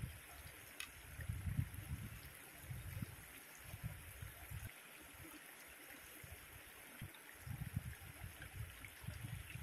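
Shallow river flowing over rock slabs, a steady soft rush of water, with irregular low rumbles coming and going underneath.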